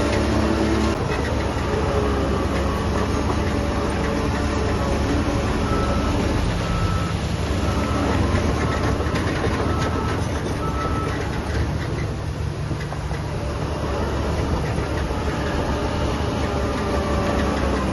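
Heavy construction machinery running at work, a steady loud diesel engine drone with clattering. Near the middle come short repeated beeps, about one a second for several seconds.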